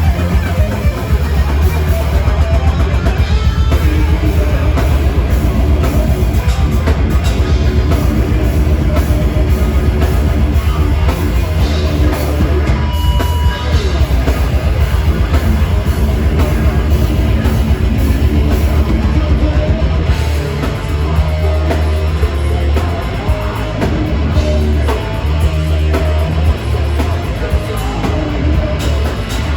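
Live heavy metal band playing loud, with distorted guitars, heavy bass and fast drumming.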